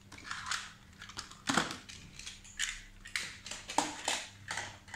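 Plastic toy cars being packed into a plastic basket, knocking against bottles and rustling the plastic bag around them: a string of short knocks and rustles.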